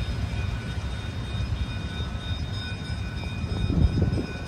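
Low steady rumble of a stainless-steel passenger train rolling away along the track, with faint steady high tones over it and a brief swell near the end.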